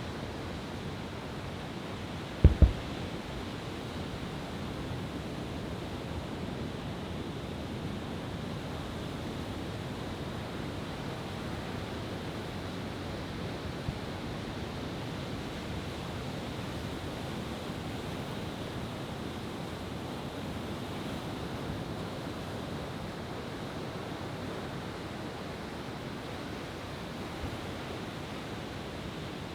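Steady wash of ocean surf, with two sharp low thumps in quick succession about two and a half seconds in.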